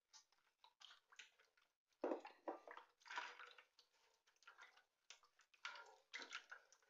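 Silicone spatula stirring eggs and milk in a glass bowl: faint, irregular wet swishing strokes.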